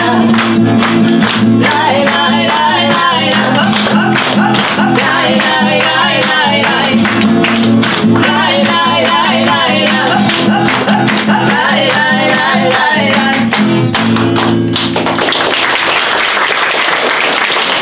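Roma song sung to wordless "lay, lay" syllables over a steady low accompaniment with a regular beat; the song stops about fifteen seconds in and applause follows.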